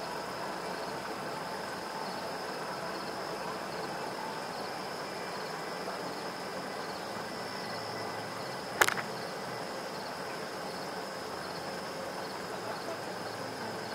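Insects trilling steadily over an even low hiss of outdoor background noise, with a single sharp click about nine seconds in.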